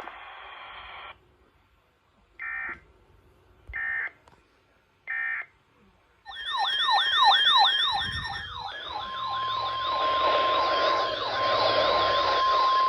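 Emergency Alert System audio off a weather radio. Three short digital data bursts about a second and a half apart, then a wailing siren that sweeps up and down about twice a second, joined about 9 s in by the steady NOAA Weather Radio warning alarm tone.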